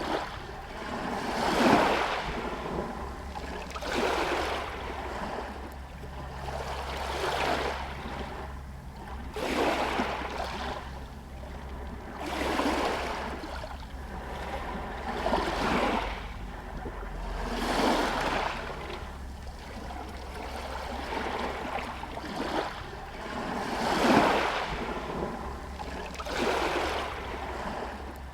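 Small sea waves lapping against a pier and shore stones, each wash rising and falling every two to three seconds, over a steady low rumble.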